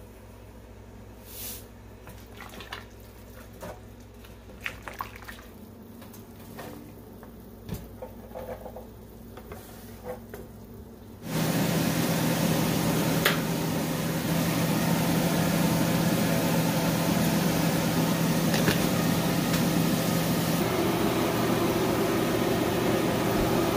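Chopped garlic frying in hot oil in a small pan: a loud, steady sizzle that starts abruptly about eleven seconds in and holds. Before it there are only a few faint light clicks and taps.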